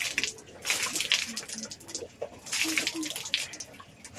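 A person forcefully blowing and hawking to clear the nose and throat over a sink: harsh, breathy blasts about a second long, two in a row.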